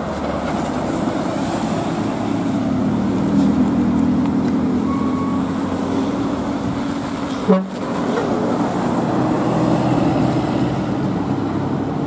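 Large coach diesel engines running steadily as buses pass close by, a continuous drone, briefly broken a little past halfway.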